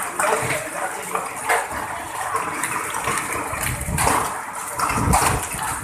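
Storm water rushing and splashing after a hailstorm, a steady noisy gush with a low rumble building near the end.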